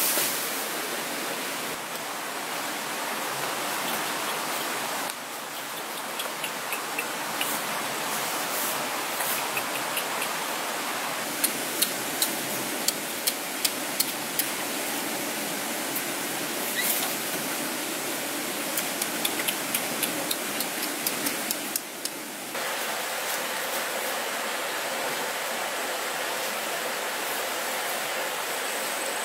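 Steady rushing of a stream, with scattered sharp snaps and crackles of leafy branches being pulled and broken, in quick runs through the middle.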